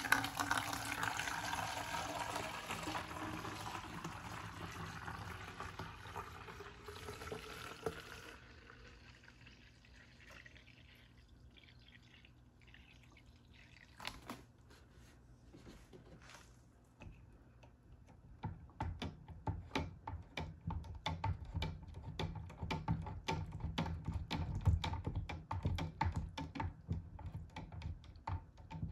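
Liquid poured into a container for about eight seconds, its pitch rising as it fills. After a quieter stretch, rapid clicking and crinkling of small items being handled.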